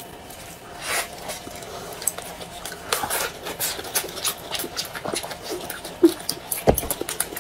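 Close-miked eating sounds: wet chewing and lip smacks with many small sharp clicks as two people eat wrapped pancake rolls, and a dull bump about two-thirds of the way through.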